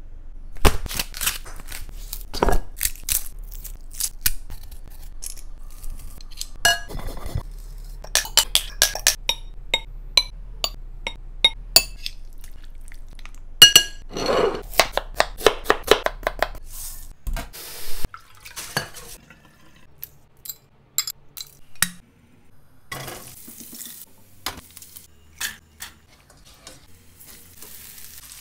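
A spoon and spatula knocking, clinking and scraping against a bowl and a cooking pan while ingredients are mixed and stirred. This comes as clusters of sharp clinks, some ringing, with short stretches of hiss in the second half.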